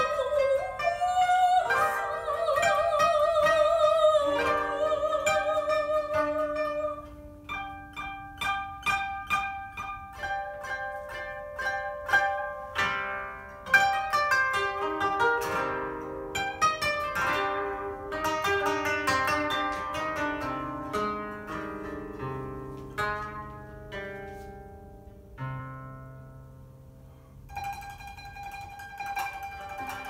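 Two koto played together, plucked notes ringing and overlapping. For the first seven seconds a held, wavering melody lies over the plucking. After that come separate plucked notes with several quick downward runs, and the playing grows quieter and sparser before a new phrase begins near the end.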